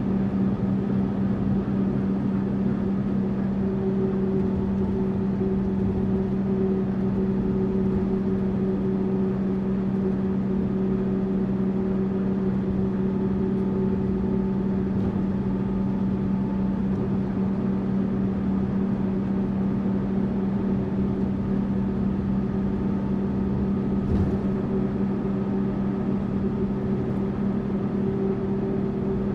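Tourist bus running at a steady cruise: an even engine hum over road noise, with one brief knock about three-quarters of the way through.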